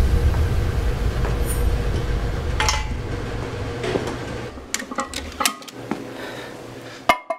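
Barbell and iron weight plates clinking and clanking as they are handled, a few sharp metallic knocks spaced over the last few seconds. Under them a loud low rumble fades out by about five seconds in.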